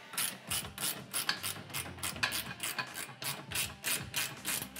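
Wrench tightening a bolt on a metal rack bracket: a quick, even series of raspy metal strokes, about four a second.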